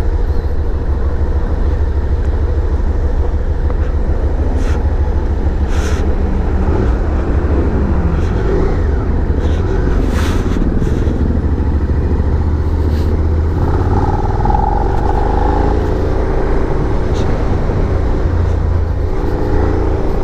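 Suzuki SV650's 645cc V-twin engine running on the move, heard under heavy wind buffeting on the rider's microphone. The engine pitch rises and falls a little partway through and again near the end.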